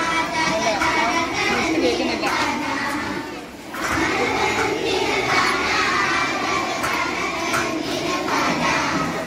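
A group of schoolchildren singing together in chorus, with a short break about three and a half seconds in.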